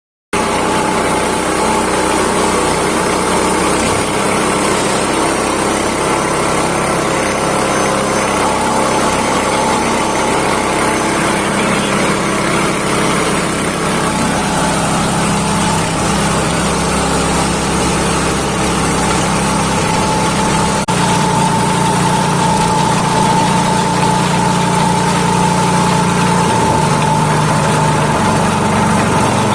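Small foam shredding machine running steadily with a continuous mechanical hum. About 21 seconds in the sound shifts and a higher whine becomes stronger.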